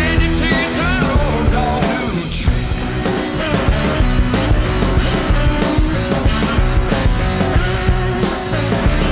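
Loud rock music with a steady beat, drums and distorted guitar.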